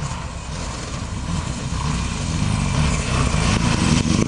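Rally car on a gravel stage approaching at full speed, its engine running hard and growing steadily louder as it closes in, with sharp cracks near the end as it slides past on the loose surface.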